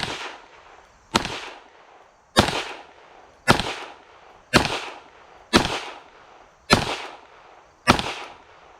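Eight shots from a Smith & Wesson M&P 2.0 .22 Magnum (.22 WMR) pistol in slow, deliberate fire, about one a second, each sharp crack trailing off in an echo.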